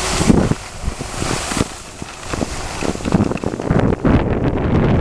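Wind rushing over the microphone of a camera carried downhill on skis, buffeting it in irregular low gusts.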